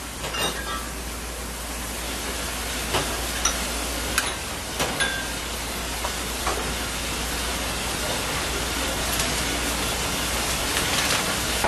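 Gas stove burner flame hissing steadily under a pot of water, with a few light ticks in the first half.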